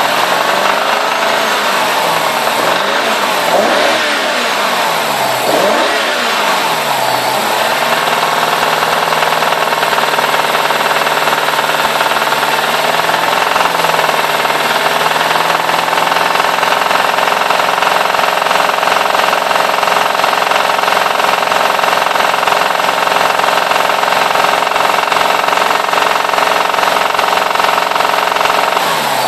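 BMW E60 550i's 4.8-litre V8 revved up and down several times in quick succession, then held at steady raised revs for about twenty seconds. The owner hears a clacking from this engine above about 2500 rpm and does not know its cause.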